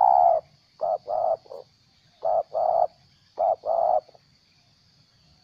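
Spotted dove (terkukur) cooing in four short phrases of two or three coo notes each. This is the broken, stuttering 'gagap' call of a decoy bird. The calling stops about four seconds in.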